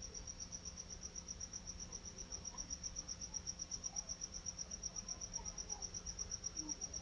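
Faint, steady high-pitched trill pulsing evenly about nine times a second, over a low background hum.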